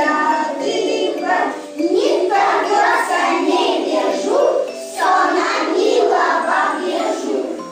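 Group of young children singing together in Russian.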